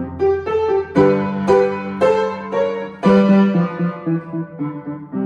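Digital piano played with both hands: a beginner's jazz-style piece of struck chords under a short melody. Accented chords come about every half second from about a second in, and the loudest is struck about three seconds in.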